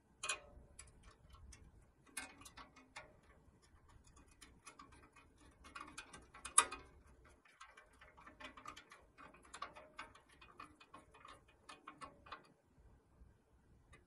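Small screwdriver turning a tiny screw to fasten a chrome headlight onto a pressed-steel toy truck body: a run of light, irregular metallic clicks and ticks, with one sharper click about six and a half seconds in.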